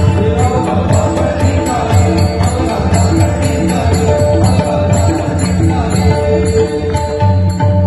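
Kirtan bhajan music: small hand cymbals (taal) struck in a quick, steady beat over a drum and a held melodic line.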